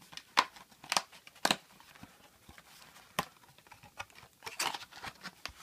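A cardboard trading-card booster box being opened by hand: a few sharp snaps and clicks of the cardboard lid and flaps with light rustling, then a quick cluster of snaps near the end.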